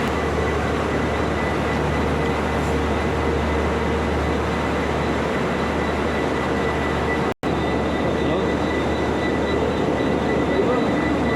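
A diesel multiple-unit train standing at a platform with its engine running: a steady hum with a faint constant whine over it. The sound cuts out completely for an instant about seven seconds in.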